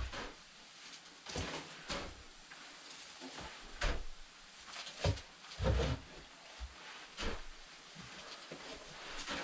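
Wood shavings being scooped and dropped into chicken nesting boxes: a series of irregular rustles and dull knocks.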